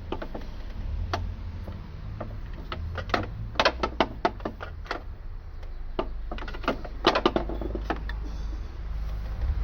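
Irregular clicks and taps of a screwdriver working against engine-bay parts, in small clusters, over a steady low rumble.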